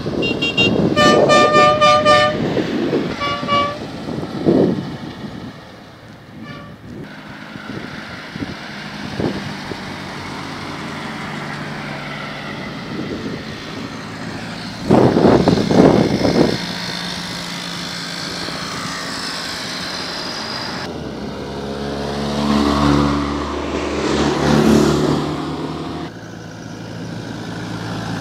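Vintage cars driving past one after another, engines running. A car horn toots for about two seconds near the start and once more briefly about three seconds in. A louder engine passes about fifteen seconds in, and another engine swells and fades near the end.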